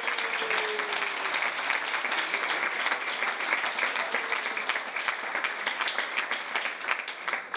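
Audience applauding steadily, many hands clapping.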